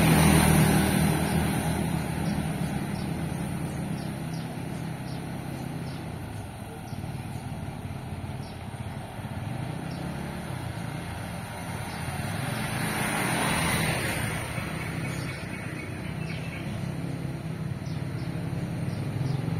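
Street traffic: motorbike engines passing on the road, one fading away just after the start, another vehicle passing about 13 to 14 seconds in, and one approaching near the end, over a steady low engine hum.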